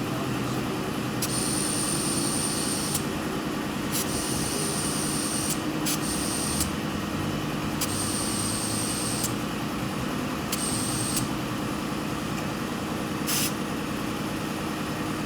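Cordless electric ratchet whining in about five short bursts of one to two seconds each, running down the beadlock ring bolts one after another.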